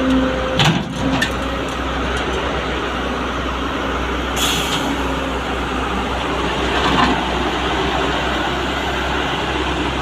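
Heavy diesel machinery, an excavator and a dump truck, running steadily at close range. There are a couple of sharp knocks about a second in and a short hiss of air about halfway through.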